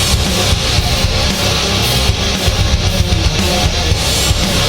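Loud background music: distorted electric guitar over heavy bass and drums, in a heavy-metal style.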